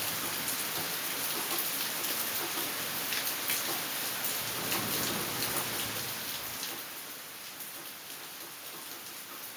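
Steady rain falling, with many individual drops ticking on surfaces; it eases a little about two-thirds of the way through.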